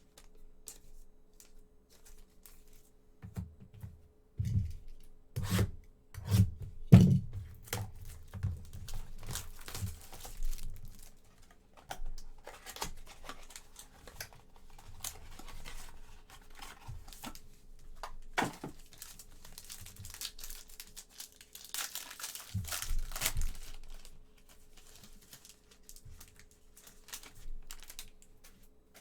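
Trading card pack wrappers being torn open and crinkled while cards are handled, a run of scattered rustles and taps with a longer stretch of tearing and crinkling a little past the middle.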